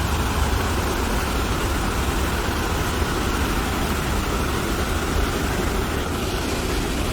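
Steady rushing of the Rhine Falls, a large waterfall's continuous water noise with a heavy low rumble.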